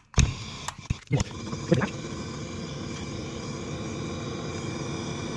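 A few clicks in the first two seconds, then a hose-fed gas blowtorch burning with a steady hiss as it heats a copper elbow joint for soldering.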